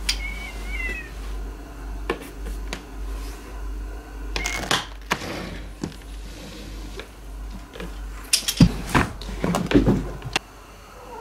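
Cat meowing, with a short wavering high call about a second in, and several sharp knocks and rustles, the loudest near the end.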